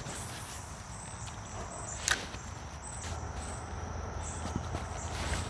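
Insects buzzing in short repeated bursts over a faint low rumble, with one sharp click about two seconds in.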